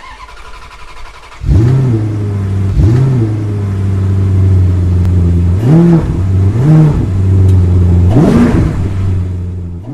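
A car engine starts running about a second and a half in and idles, with five quick throttle blips, each a short rise and fall in pitch. The sound fades away near the end.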